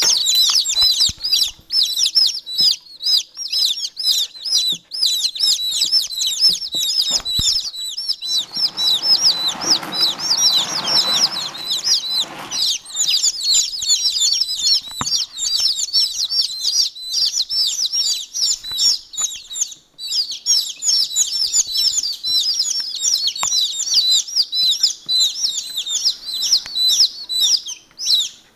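A brood of day-old chicks peeping without pause, many short high chirps overlapping, with a few seconds of rustling about a third of the way through.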